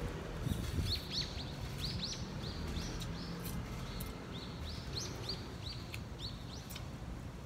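A small bird chirping over and over: short high chirps, about two a second, starting about a second in, over a low steady rumble.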